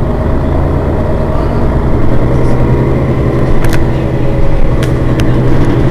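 Mercedes-Benz Citaro city bus's rear-mounted engine idling steadily while the bus stands at a stop, its low hum growing a little stronger about two seconds in.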